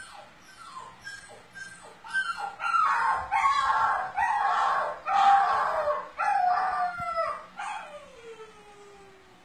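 Puppies whining and crying in high-pitched calls: a run of short whimpers, then louder drawn-out whines from about two seconds in, ending in one long whine that falls in pitch.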